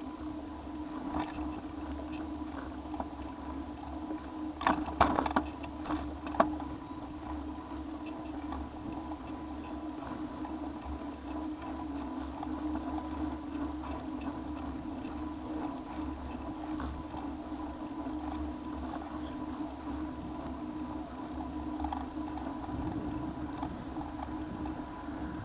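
Bicycle riding along pavement: a steady hum with light rattling, and a short cluster of sharp clicks and knocks about five seconds in.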